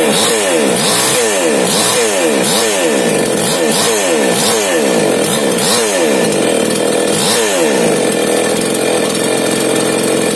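Small two-stroke chainsaw engine running on a test after a rebuild with a new piston and carburettor. The throttle is blipped over and over, so the revs dip and rise about once a second, then hold steadier near the end.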